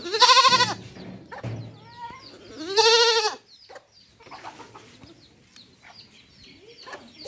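A goat bleats twice, about two and a half seconds apart, each bleat loud and wavering. Faint peeping of chicks comes between the bleats.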